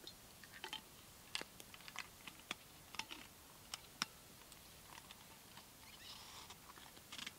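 Quiet, scattered sharp clicks and ticks from a small campfire crackling, with the soft knocks and scrapes of a steel vacuum flask being handled and its cap screwed on about six seconds in.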